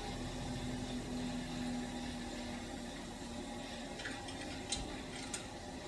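Steady low hum with a faint tone that fades away over the first few seconds, then a few faint sharp clicks in the second half.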